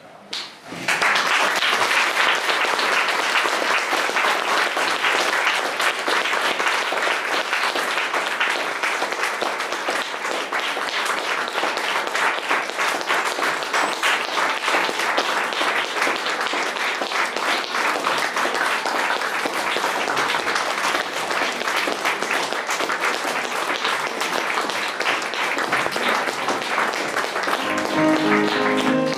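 Audience applauding: clapping breaks out suddenly about a second in and holds steady.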